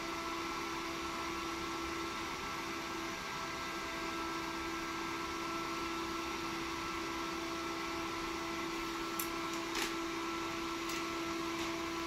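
Server cooling fan running steadily, a noisy whir with a steady low hum and a fainter higher tone, with two faint clicks late on.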